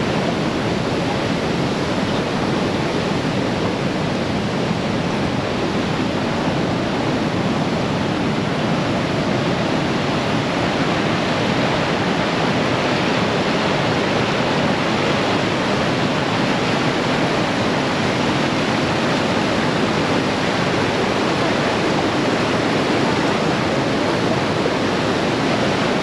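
Wide, low river waterfall: white water pouring over a rocky ledge, a loud, steady rushing of water.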